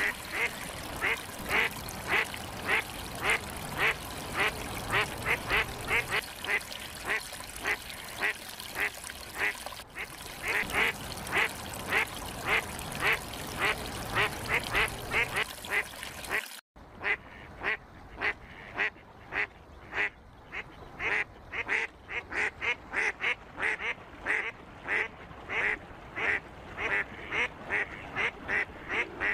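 Ducklings peeping: a steady stream of short, high-pitched peeps, about two to three a second, with a split-second break about two-thirds of the way through.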